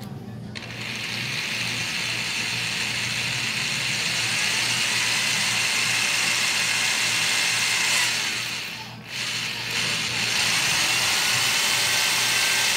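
Electric drill running with a twist bit boring into a small, hard, dark oval object held in the hand, with a steady motor whine. The drill stops briefly about nine seconds in, then starts again.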